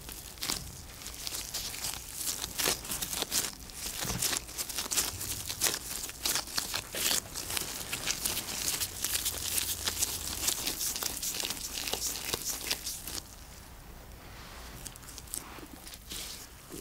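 Disposable gloves crinkling and soft bread dough squishing and sticking as hands pinch a filled dough ball shut and roll it into a round. The dense crackling eases off a little over three-quarters of the way through, with a few crackles again near the end.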